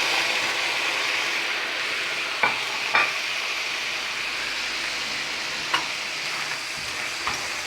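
Seafood sizzling steadily in hot oil in a paella pan, with a few light knocks about two and three seconds in and again near the end.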